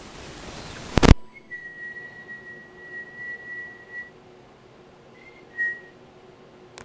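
A steady, high, pure whistling tone held for about two and a half seconds, then a second short one about five seconds in. Before it come rustling noise and clicks, ending in a loud knock about a second in.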